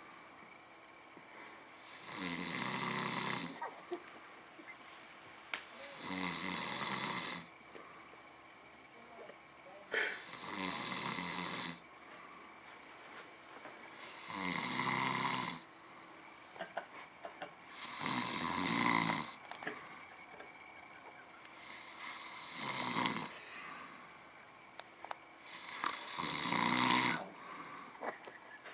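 A man snoring in deep sleep with his mouth open: seven long snores, evenly spaced about four seconds apart.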